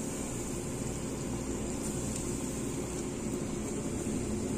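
Breaded chicken pieces deep-frying in a pot of oil over a low gas flame: a steady, even sizzling hiss.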